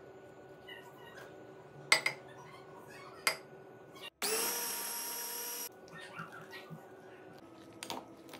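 Electric mini food chopper's motor running in a short, steady whir of about a second and a half, blending cucumber peels, garlic and yogurt. Before it come two sharp knocks, the louder about two seconds in, and there are light clinks near the end.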